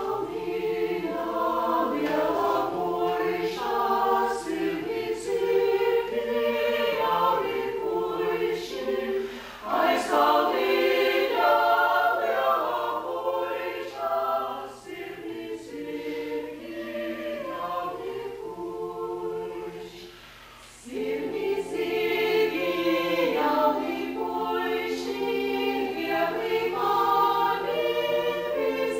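Small mixed-voice vocal ensemble singing a cappella in parts, with short breaks between phrases about ten seconds in and again about twenty seconds in.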